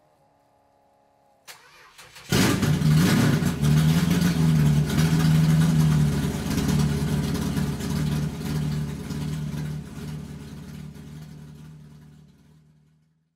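A car engine sound effect: a click, then the engine catches and runs loudly with a steady low note, fading away over the last few seconds.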